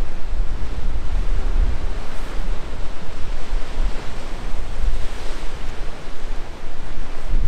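Rough sea surf breaking and washing against low rocky cliffs, a continuous rushing noise. Strong wind buffets the microphone with a low rumble.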